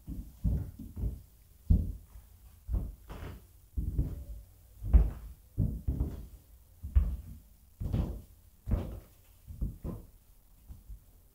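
Footsteps on a hollow wooden floor: a run of dull, uneven thuds, about one or two a second.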